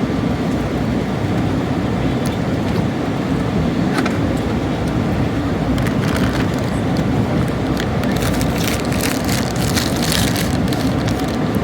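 Steady low rumble of an airliner cabin in flight, from the engines and airflow. Scattered light clicks and rustles come through it, thickest from about eight to eleven seconds in.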